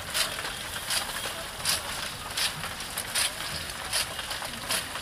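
Spinning roller ice-cream drum coated in ice cream, with a short scraping hiss repeating evenly about every three-quarters of a second as it turns.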